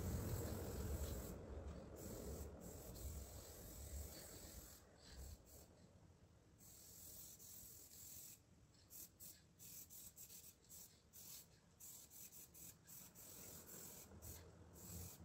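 Faint hiss of an aerosol spray-paint can, sprayed in many short bursts in the second half, over a low rumble that fades over the first few seconds.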